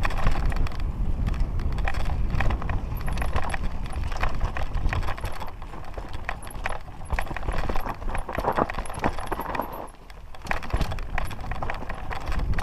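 Mountain bike descending a rocky trail: tyres crunching and bumping over stones and the bike rattling and clattering in quick, uneven knocks, over a heavy rumble of wind on the microphone. The clatter eases briefly near the end.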